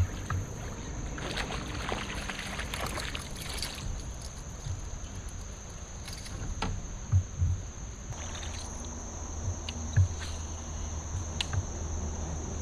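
Insects drone at one steady high pitch, with a few short, dull knocks against a fishing kayak's hull, two close together about seven seconds in and another near ten seconds. A rustle of water or gear comes about one to four seconds in.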